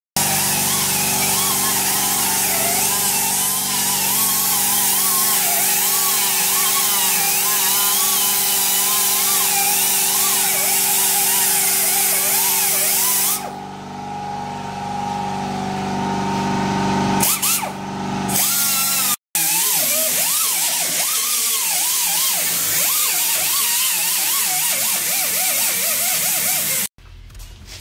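Sandblaster blasting, a loud steady hiss of air and abrasive over the hum of a running air compressor. The hiss drops away briefly about halfway through and cuts off suddenly near the end.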